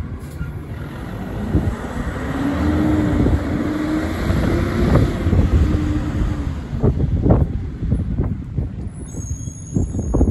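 Rear-loading garbage truck's diesel engine running as the truck pulls away, growing louder about two seconds in, with a steady whine held for a few seconds and a few knocks near the end.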